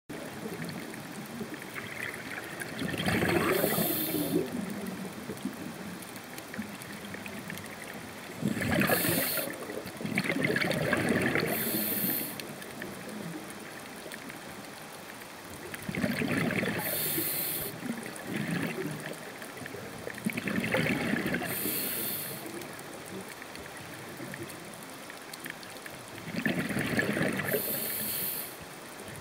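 Scuba diver breathing underwater through a regulator: a hiss of each inhalation and a gurgling rush of bubbles on each exhalation, recurring every few seconds over a steady underwater hiss.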